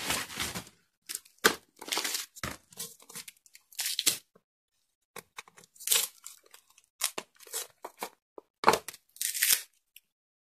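Brown paper wrapping, plastic film and packing tape being torn and peeled off a new skateboard, in irregular short bursts of tearing and crinkling with brief pauses.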